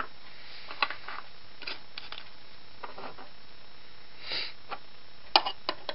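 Scattered light clicks and taps from handling the parts of a Roto window corner drive as a piece is pushed through it, with a sharper cluster of clicks near the end. A short soft sniff a little past four seconds.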